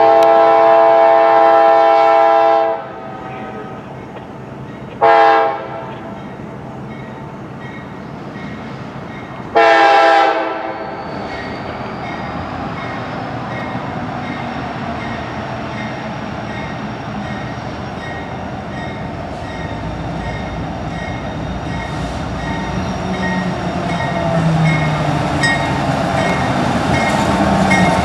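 CSX diesel locomotive's K5LA air horn sounding three blasts, a long one and then two shorter ones, from the AC6000CW-led light engines as they approach. The locomotives' engine and wheel rumble then grows steadily louder as they come up and pass close by.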